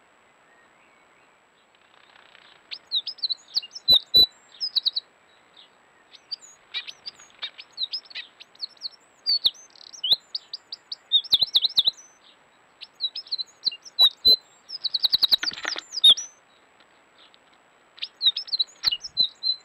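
Eurasian wren singing at dawn: phrases of fast, high notes ending in rapid trills, several songs with short gaps between them, and a couple of sharp clicks among them.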